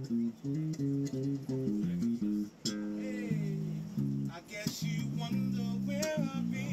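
Live guitar playing a quick run of picked single notes that change several times a second.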